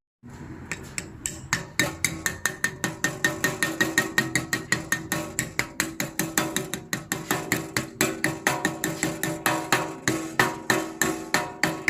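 Hammer rapidly tapping the sealant-coated metal dust cap into the wheel-bearing hub, about four evenly spaced ringing metal strikes a second.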